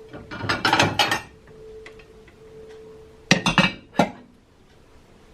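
Crockery clattering and clinking as a plate is taken out and set down: a burst of clinks near the start, then a second burst a little past three seconds in ending with a single knock.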